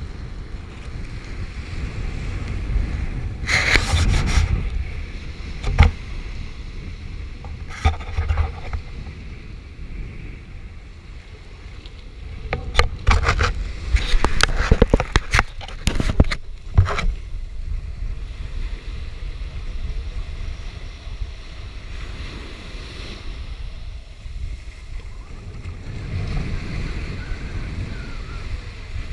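Small waves breaking and washing up onto a sandy shore, with wind buffeting the microphone as a steady low rumble. Louder rushes come about four seconds in, at about eight seconds, and in a cluster between about thirteen and seventeen seconds.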